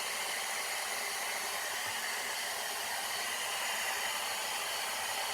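Handheld blow dryer running steadily, an even rush of air with a faint high whine, used to set the wig's hair.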